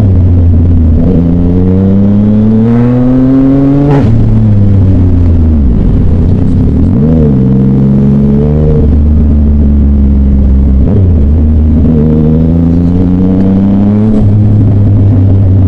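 Loud Yamaha Tracer motorcycle engine and exhaust under way, pulling through the gears. The revs climb for about three seconds, drop sharply at a gear change about four seconds in, blip briefly around seven seconds, run steady, then climb again and drop once more near the end.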